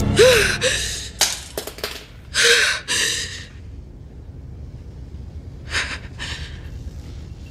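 A woman gasping and breathing hard in distress. A run of sharp, partly voiced gasps comes in the first three seconds, then two more about six seconds in.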